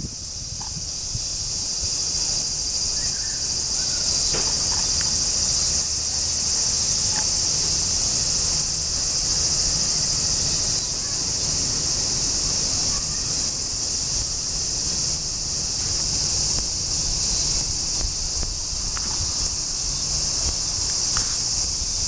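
Chorus of cicadas shrilling steadily, a dense, unbroken high-pitched hiss, over a faint low rumble.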